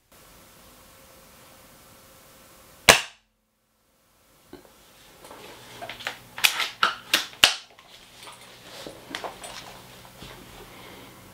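A spring-powered airsoft sniper rifle (a Classic Army SR-40 with an M160 spring) fires one loud, sharp shot into a chronograph about three seconds in. A second and a half later comes a run of sharp mechanical clicks and clacks from handling the rifle, followed by a few fainter clicks.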